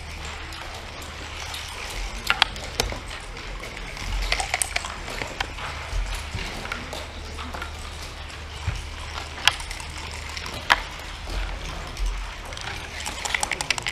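Wooden backgammon checkers and dice clacking on a wooden board: a rattle of dice landing about four seconds in, single sharp clicks of checkers being set down, and a quick run of clatters near the end as the dice are rolled again, over a steady low hum.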